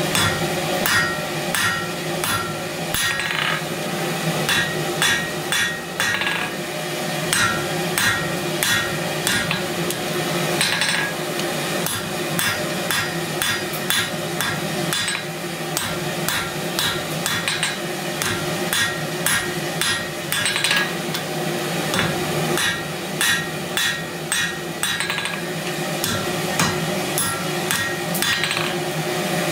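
Hand hammer striking red-hot round steel stock on an anvil while forging a tong bit: a long run of rapid blows, about two to three a second with a few short pauses, each with a brief metallic ring.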